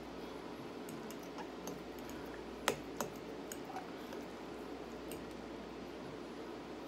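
Metal fork clicking and scraping against a glass bowl while twirling spaghetti, with soft wet chewing sounds. The sharpest click comes a little under three seconds in, with a second one just after.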